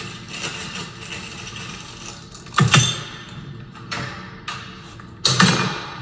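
Plastic packaging crinkling and rustling as a new deadbolt assembly is unpacked and handled, with two louder knocks about two and a half and five seconds in.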